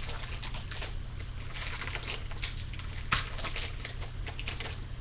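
Foil wrapper of a 2015 Bowman baseball card pack crinkling and tearing as it is pulled open by hand, a continuous crackle with one sharper crackle about three seconds in.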